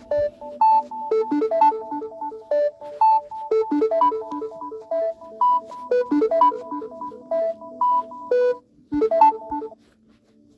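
A phone ringtone playing: a quick electronic melody of short, clean synthesized notes, several a second, that stops about a second before the end.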